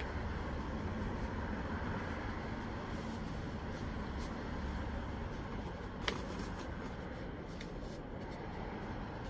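Heat-shrink tubing being slid and worked by hand over a foam-wrapped handlebar grip: soft rubbing and rustling, with one sharp click about six seconds in, over a steady low background rumble.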